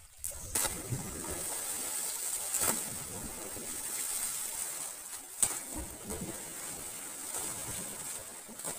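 People splashing into pond water one after another, each landing a sharp splash, with the water churning and sloshing in between.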